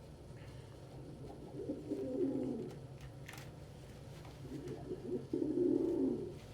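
Domestic pigeons cooing in two low, warbling bouts, one about two seconds in and a longer one near the end, over a faint steady hum.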